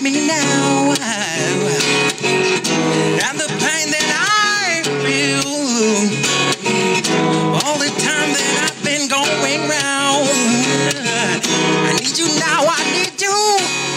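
A man singing a melody into a microphone while strumming an acoustic guitar, his voice sliding up and down between notes over the steady chords.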